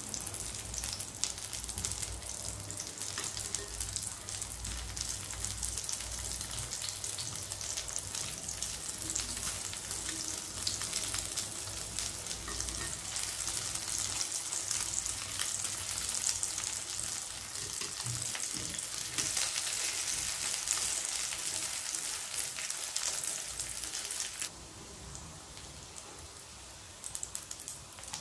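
Egg-battered luncheon meat slices frying in hot oil in a pan: a steady sizzle with many fine crackles and pops. About three-quarters through, the sizzle drops suddenly to a much quieter hiss, and a few crackles come back near the end.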